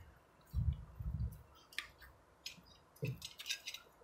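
Close eating noises as crab is eaten with the fingers: scattered wet smacks and sharp clicks, with two low dull thuds about half a second and a second in.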